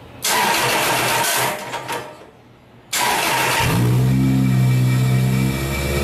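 Toyota 2ZZ-GE 1.8-litre four-cylinder engine being cranked by its starter, a brief stop, then cranked again until it catches about three and a half seconds in and runs steadily. It starts and runs with the mass airflow sensor unplugged.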